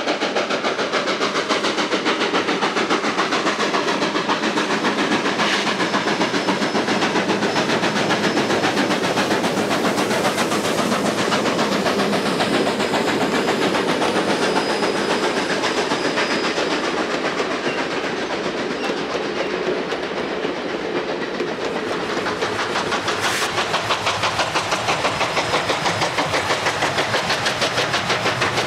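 Steam locomotive working hard under load, its exhaust beating steadily as it passes with a train of passenger cars, the car wheels clicking over the rail joints.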